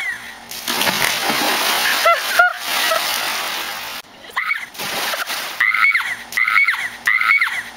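A splash into a backyard pool: a rush of water noise for about three seconds, with a brief cry in the middle. Then a young woman's short, high "ah!" screams repeat about twice a second.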